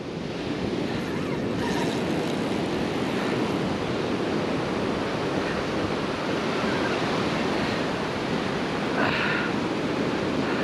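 Ocean surf breaking and washing up a sandy beach: a steady rushing wash of waves.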